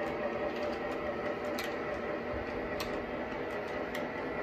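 Lionel O-gauge toy freight cars rolling on tubular three-rail track: a steady metallic rumble of the wheels, with a few sharp clicks about a second apart.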